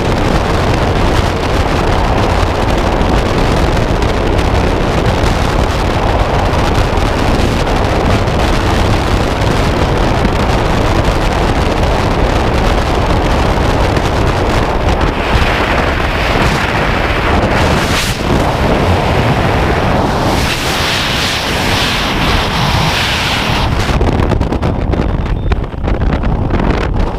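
Freefall wind rushing over a helmet camera's microphone, loud and steady. About three seconds before the end the high hiss drops away as the parachute opens.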